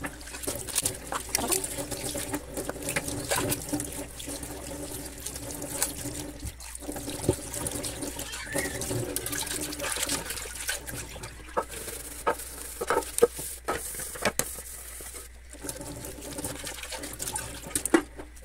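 Kitchen tap running into a stainless steel sink while dishes are washed by hand, with water splashing and pots and cups knocking against each other.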